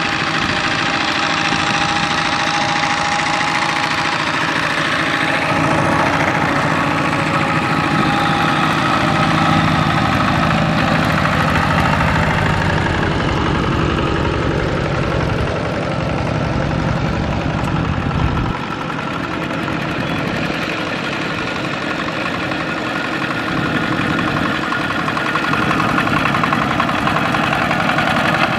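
Single-cylinder diesel engines of two-wheel walking tractors running steadily as they pull loaded trailers. A deeper low rumble grows about a fifth of the way in and drops away suddenly about two-thirds through.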